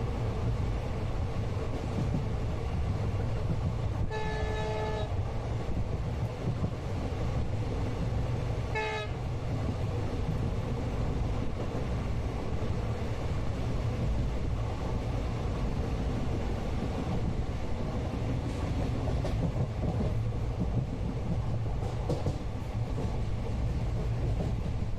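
Steady low rumble of an Indian passenger train running, heard from inside a coach. A horn sounds twice: a blast of about a second some four seconds in, and a shorter one about five seconds later.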